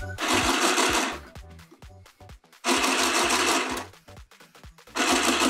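Handheld sewing machine stitching through thin t-shirt knit in three short runs of about a second each, stopping and restarting between them.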